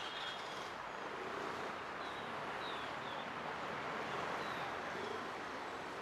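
Outdoor ambience: a steady hiss of distant traffic, with a few short, high bird chirps about two and four seconds in.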